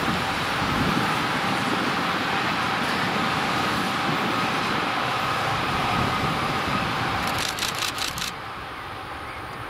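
ICE 1 high-speed electric train passing: a steady rush of wheel and rolling noise with a faint whine. Near the end a quick run of sharp clacks comes as the rear power car goes by, and then the sound drops away.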